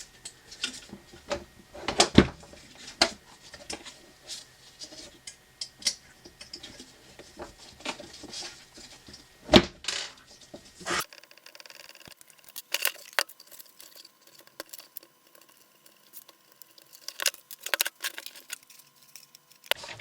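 Scattered clicks, taps and metallic clinks of a hex key and small metal parts being handled while the heater's screws are undone, with a couple of sharper knocks, the loudest about two and nine and a half seconds in.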